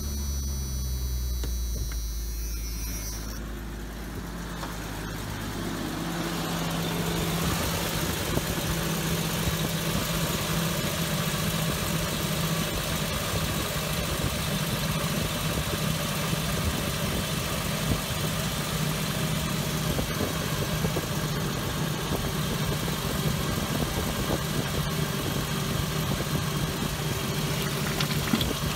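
Jeep Cherokee XJ engine idling in neutral just after starting. From about six seconds in, automatic transmission fluid pours steadily out of the disconnected cooler line into a bucket over the idle: the AW4 transmission's pump is pushing its old fluid out during a flush.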